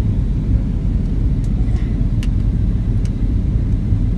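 Steady low rumble of airliner cabin noise from the engines and airflow, with a few faint clicks over it.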